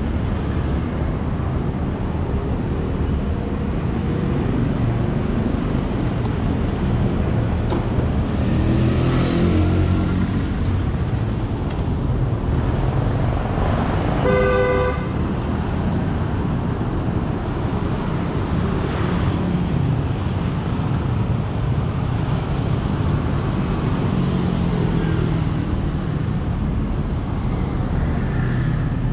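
Steady city street traffic with a couple of vehicles passing close. About halfway through, one vehicle horn honks for about a second.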